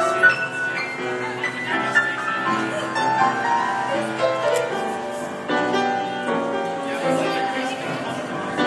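Grand piano being played by hand: a loose, improvised stream of chords and melody notes, with notes ringing on under new ones.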